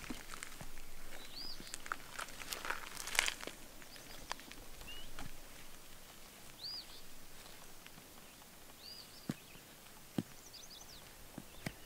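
A small bird chirping now and then, five short high arched calls, over outdoor background noise with scattered light clicks and scratches, busiest a few seconds in.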